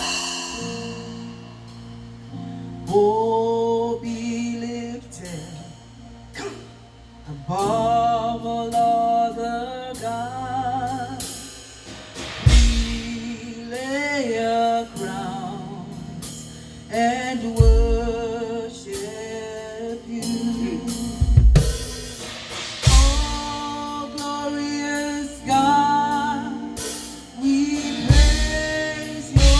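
Live gospel praise music: a voice sings a wavering melody over a band's sustained chords, and a drum kit comes in about twelve seconds in with heavy kick drum and snare hits.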